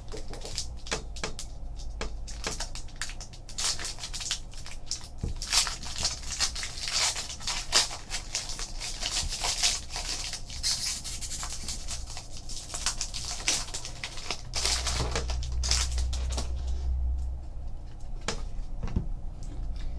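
Foil trading-card pack wrapper crinkling and tearing as it is opened, with the cards clicking and sliding against each other as they are handled.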